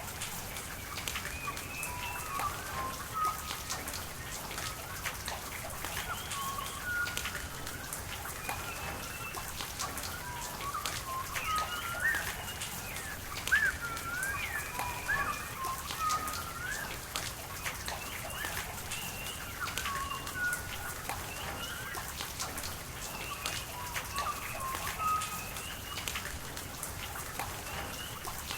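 Steady rain with individual drops pattering and a hiss of rain and running water, while birds call again and again: short chirps and quick whistled rising and falling notes.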